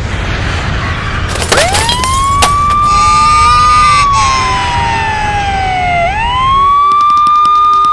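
Police siren sound effect wailing: it winds up sharply about a second and a half in, holds, slowly sinks, then winds up again near six seconds. Under the first part runs a car engine rumble with a couple of sharp knocks, and the rumble stops near the end.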